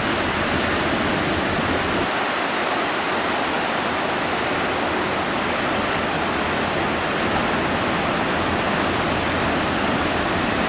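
Ocean surf breaking and washing ashore, a steady even rush of water noise.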